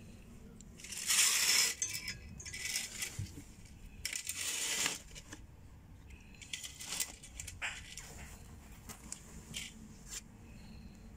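Fabric curtain being pushed aside, rustling in three brief bursts in the first half, followed by a few light clicks.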